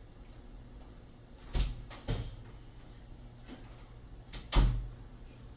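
A few dull knocks over a low steady hum, the loudest about four and a half seconds in.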